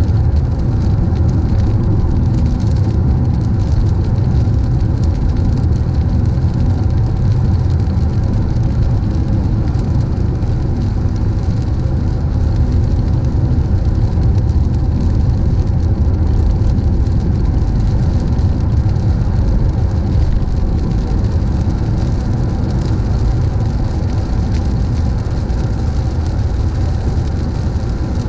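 A car driving on a wet road: steady, unchanging rumble of tyres and engine.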